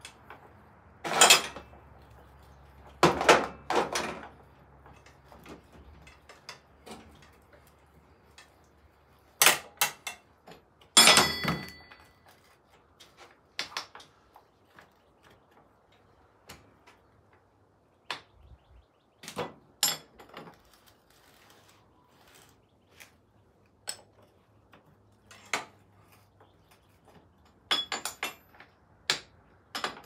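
Hand tools and metal parts clanking and knocking while a dirt bike's rear wheel and chain adjusters are worked on. A few loud knocks come in the first dozen seconds, then lighter scattered clicks and ticks.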